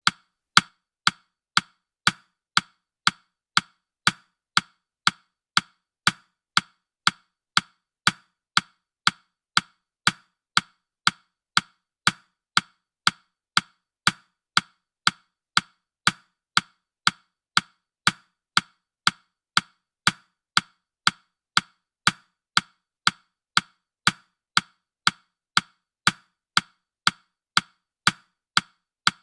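Countdown timer's ticking sound, a steady, even tick about twice a second.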